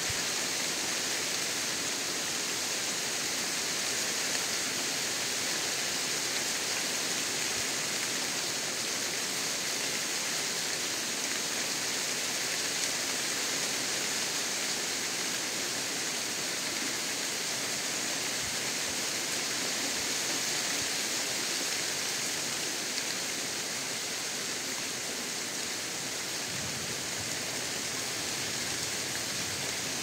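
Steady rain falling on open countryside vegetation, an even hiss without a break.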